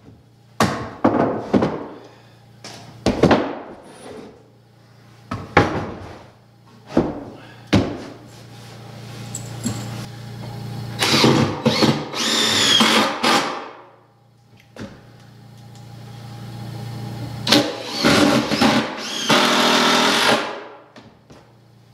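Cordless drill driving screws into wooden stair treads in two runs of a few seconds each, whining as it bites, after a series of sharp wooden knocks as the boards are set in place. A steady low hum runs underneath.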